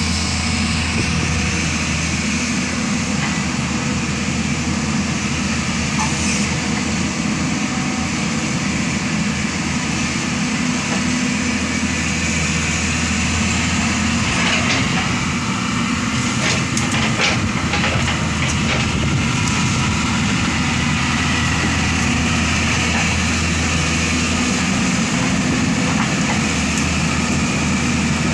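Diesel engine of a heavy earthmoving machine running steadily with a deep, even hum, with a few short knocks about halfway through.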